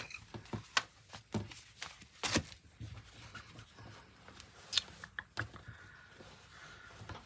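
Quilting fabric being unfolded, lifted and smoothed out by hand on a wooden table: a series of soft rustles and brushes, the loudest about two seconds in and a few more around five seconds in.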